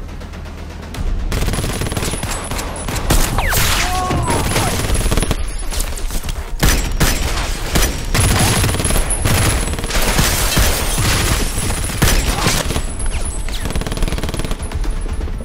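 Automatic rifle fire in long, rapid bursts, many shots in quick succession, starting about a second in and going on throughout.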